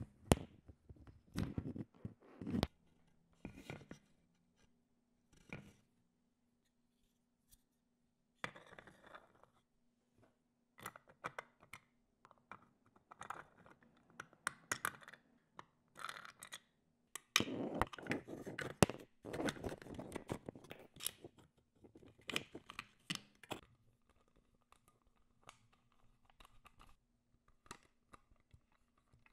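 Small-parts assembly handling: hands working wires, a 3D-printed plastic chassis and small machine screws turned with a hex key, giving irregular bursts of scraping, clicking and tapping, busiest a little past halfway. A faint steady hum runs underneath.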